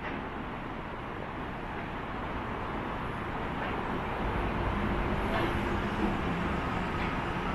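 Vehicle rumble and city traffic noise, growing steadily louder with a low hum coming in over the second half as a vehicle draws near.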